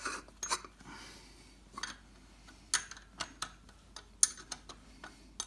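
Irregular metallic clicks and clinks of a steel oil filter canister and a spanner being handled as the canister is fitted up to its filter head and the centre bolt is turned in by hand. The sharpest click comes about four seconds in.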